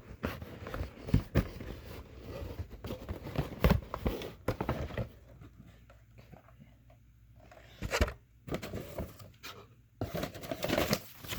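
Cardboard box and packaging being handled and rummaged through: scattered rustles, scrapes and knocks, with sharper knocks a little over a second in, just under four seconds in and at about eight seconds.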